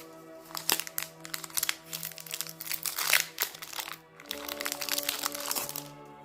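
Plastic trading-card booster pack wrapper being torn open and crinkled, in two bouts of crackling with a short break about four seconds in, over soft background music.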